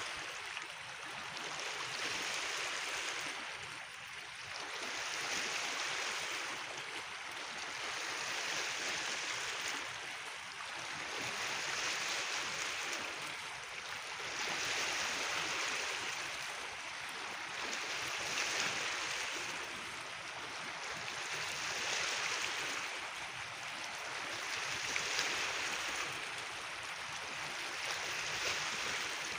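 Small waves washing on a gravelly beach: a hissing wash that swells and eases about every three seconds.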